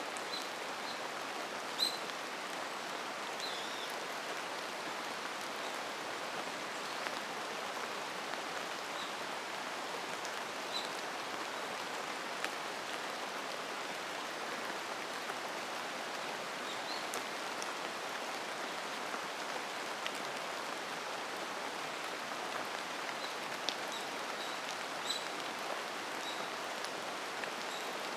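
Steady rain falling, an even hiss of drops, with short high bird chirps scattered through it and a few single close drops ticking.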